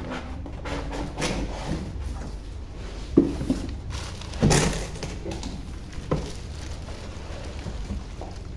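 Cardboard packing being unpacked: scattered rustles, scrapes and knocks as moulded pulp inserts are pulled from a speaker box and the plastic bag around the speaker is handled. The loudest, sharpest crinkle comes about four and a half seconds in.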